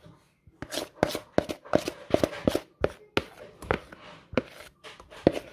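A spoon scrapes and taps against a mixing bowl as thick cake batter is scraped out into a baking tin. It sounds as a string of irregular clicks and knocks, a few a second, with soft scraping between them.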